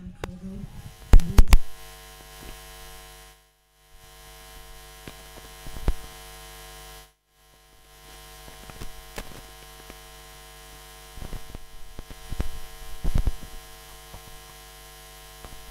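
Steady electrical mains hum in the sound feed, with scattered clicks and pops, cutting out completely twice for under a second.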